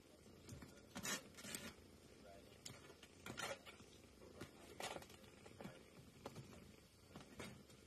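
Near silence with faint, scattered rustles and scratches of kittens scrambling over blankets in a fabric playpen.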